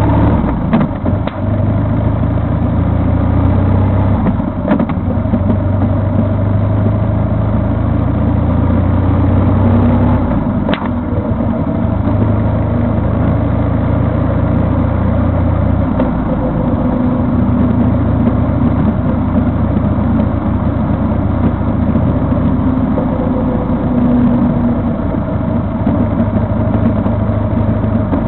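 Vehicle engine running on the move, with road noise. The low engine note changes about ten seconds in and again around sixteen seconds.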